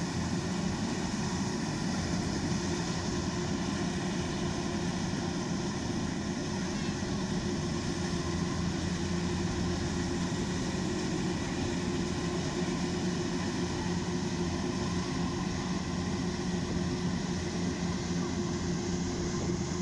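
Kubota DC-105X rice combine harvester running steadily under load, a continuous engine and machinery drone with a steady hum and no change in speed.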